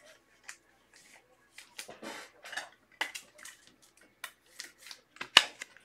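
Faint rustling and light clicks of trading cards and plastic card holders being handled, with a sharper click near the end.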